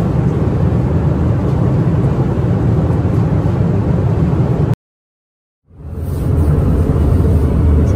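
Airliner cabin noise: a steady, low rumble of engines and rushing air. It cuts off abruptly about five seconds in and fades back in a second later.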